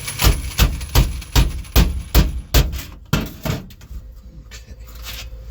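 Hammer striking the steel sheet-metal floor pan, tapping the edge of the new panel down to meet the old floor at the seam. There are about three blows a second for about three and a half seconds, then they stop.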